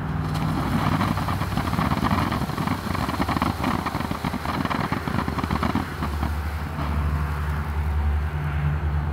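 Black Cat Neon Dragon ground fountain firework spraying sparks with a dense crackling hiss, which thins out about six seconds in. A low steady hum comes up underneath near the end.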